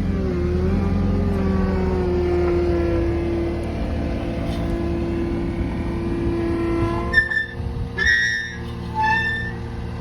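Engine of the machine driving the post-hole auger running steadily with a hydraulic-like whine. About seven seconds in the whine drops away, and short high squeaks or chirps come in.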